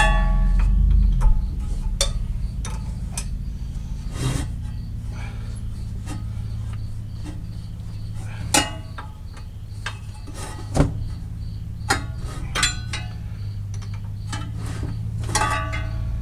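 Hand tools working bolts on a car engine: scattered metal clicks and knocks with a couple of short ringing clinks, over a steady low hum.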